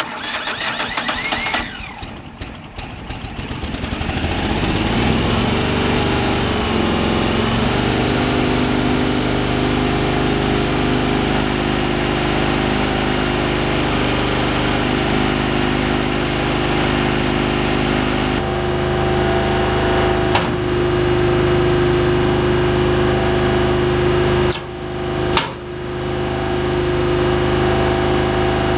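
Vermeer BC625A brush chipper's engine starting and coming up to speed over the first few seconds, then running steadily. Two brief drops in the sound come a few seconds before the end.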